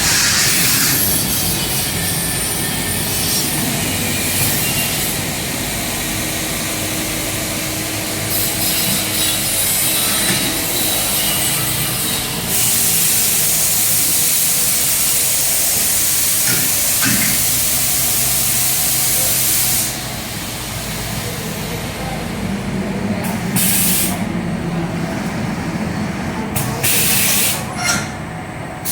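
Laser cutting machine at work: a steady hiss of gas rushing from the cutting head over machine noise, louder for several seconds in the middle, then dropping off about two-thirds through, with a couple of short bursts of hiss near the end.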